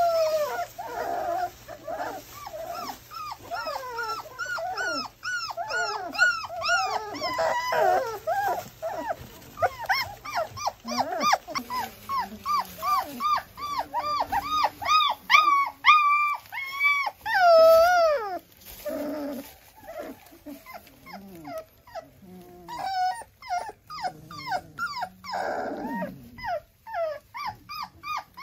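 Newborn German Shorthaired Pointer puppies squealing and whimpering: many short, high, rising-and-falling cries, several a second and overlapping, from more than one puppy.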